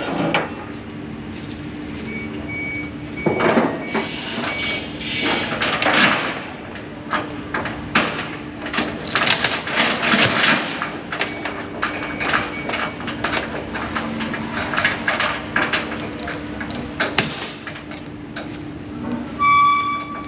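Irregular knocks, clanks and rustling handling noises over a steady low hum.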